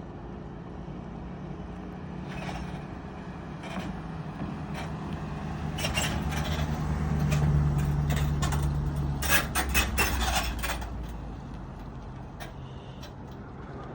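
Motorboat engine running with a low, steady hum that grows louder toward the middle and fades away after about eleven seconds, with a cluster of knocks and scrapes near its loudest point.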